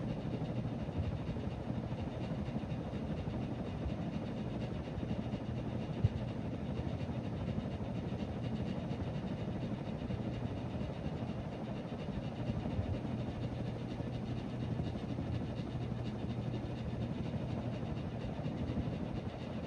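Harbor Breeze Cobra Elite three-blade ceiling fan running on high speed: a steady, loud motor buzz and low hum over the rush of air from the blades. There is a single sharp click about six seconds in.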